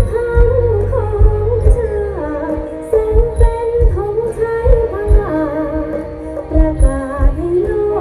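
A live luk thung band playing over a PA: a singer carries a wavering melody over the band, with a bass drum beat underneath.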